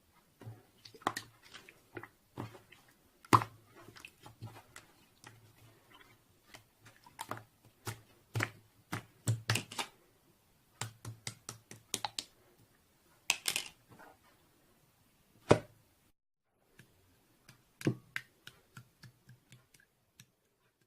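A series of irregular clicks and taps, some in quick runs and a few louder single knocks, sparser near the end.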